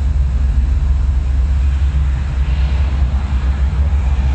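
A video installation's soundtrack playing over loudspeakers: a loud, deep, steady rumbling drone with a rapid flicker in the bass, and a hissing swell about halfway through.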